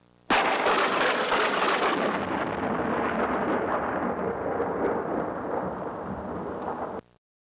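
Thunderclap sound effect: a sudden crack followed by a long rumble that grows duller as it goes, cut off abruptly about seven seconds in.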